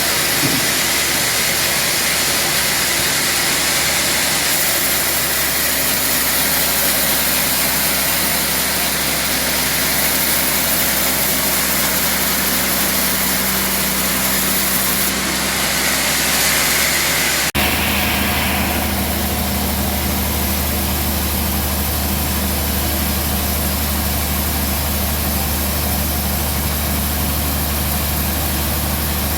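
Band sawmill running with a continuous mechanical noise; about two-thirds of the way through it cuts abruptly to a steadier, lower hum.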